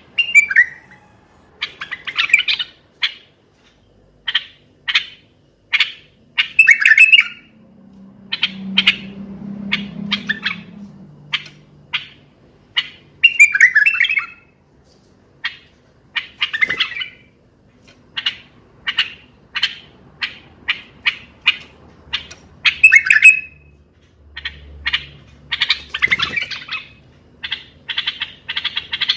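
Common bulbul singing: a string of short, sharp chirps about one or two a second, broken every few seconds by brief warbled phrases.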